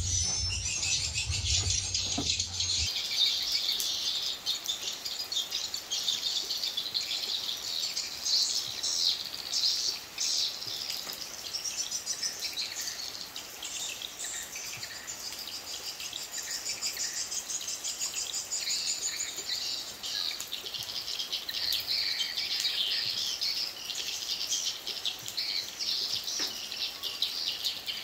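Swiftlets twittering: a dense, continuous chatter of high chirps. A low hum cuts off about three seconds in.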